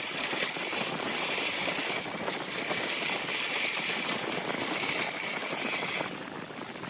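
A wood lathe running with a tool or abrasive working a spinning bamboo-chopstick and epoxy-resin blank, a steady rattling hiss. The hiss drops away about six seconds in.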